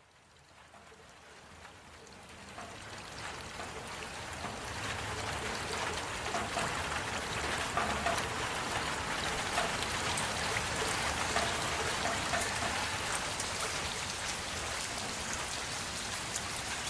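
Heavy rain falling on a surface, with many individual drop ticks in a steady hiss. It fades in from near silence over the first few seconds, then holds steady.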